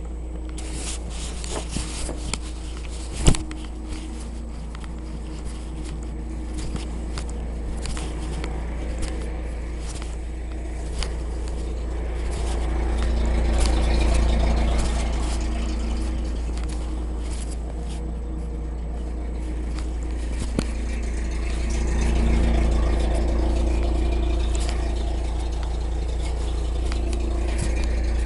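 Saladin armoured car's Rolls-Royce B80 straight-eight petrol engine running on the move, its note swelling louder twice as it takes load. Rattles and clanks from the hull and fittings throughout, with one sharp knock about three seconds in.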